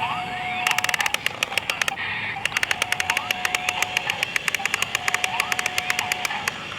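Excavator working, a rapid, even clicking at about a dozen a second over a steady whine with short rising whistles. The clicking breaks off briefly about two seconds in and stops near the end.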